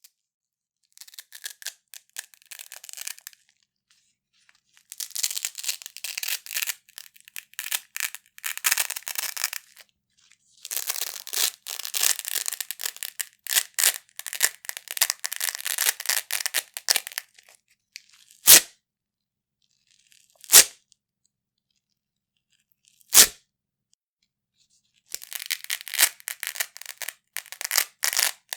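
Large Velcro hook-and-loop strips ripped apart again and again at different speeds. Slow pulls give long crackling rips of several seconds; in the latter part three fast pulls give short, sharp rips, with silent pauses between.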